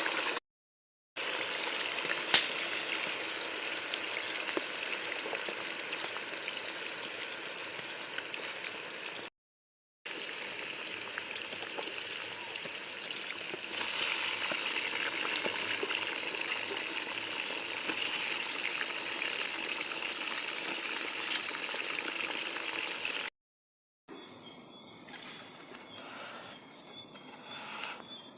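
Food deep-frying in hot oil: a steady sizzle with occasional louder crackles, in several short stretches split by brief cuts to silence. In the last few seconds a steady high-pitched tone sits over a quieter sizzle.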